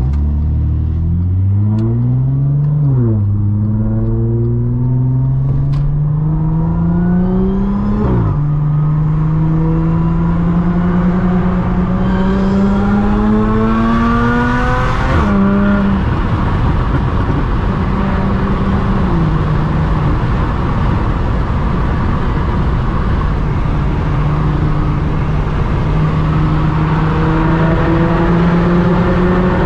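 Supercharged Audi S4's V6 accelerating through the gears: the engine pitch climbs and drops sharply at each of three upshifts, about 3, 8 and 15 seconds in, then holds nearly steady at cruise.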